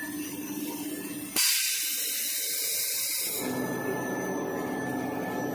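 Toilet-paper log saw cutting machine running with a steady hum, broken about a second and a half in by a sudden loud hiss that lasts about two seconds, after which the hum returns.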